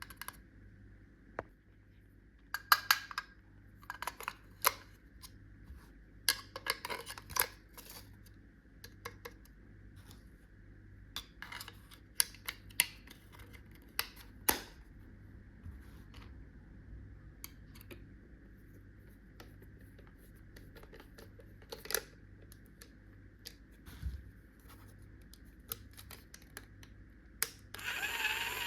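Small plastic toy tools and packaging being handled, with scattered clicks, taps and scratching. Near the end a battery-powered toy electric drill switches on with a loud, wavering whine.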